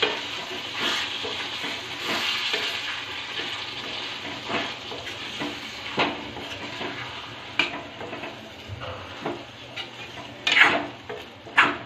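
A metal spoon stirring and scraping chunks of goat intestine through a sizzling masala in a wok-style pan, with a steady hiss of frying and scattered scrapes and clinks of the spoon against the pan. The loudest scrapes come near the end.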